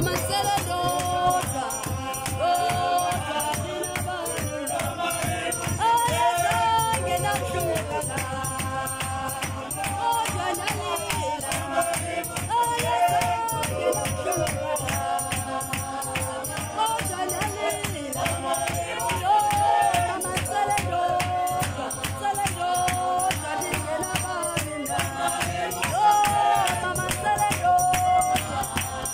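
A group of voices singing a Xhosa traditional healers' (amagqirha) ceremonial song together over a fast, steady percussion beat.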